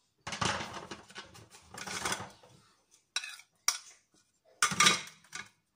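A silicone spatula stirring and scraping oatmeal cookie dough in a plastic mixing bowl. This is followed by a few sharp clicks and a louder clatter of kitchenware knocking against the bowl near the end.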